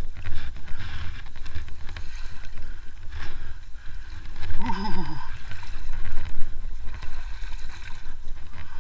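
IRBIS Mukhtar 15 motorized tow running as it ploughs through shallow marsh water: a steady low engine rumble with water sloshing around the machine.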